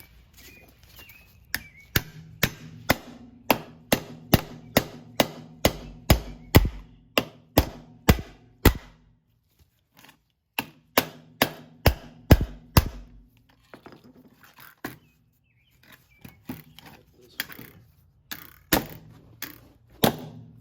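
Repeated hard whacks on a Krate Tactical OTF knife in a destruction test, about two blows a second, in three runs with short pauses. The blade tip is still intact.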